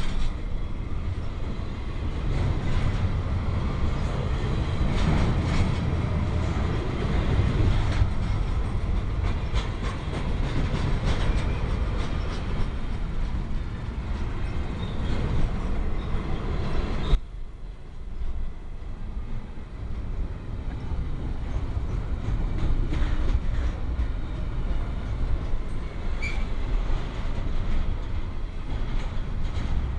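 Union Pacific manifest freight train rolling past: a steady rumble of wheels on rail with scattered clicks. The sound drops abruptly a little past halfway, then carries on quieter.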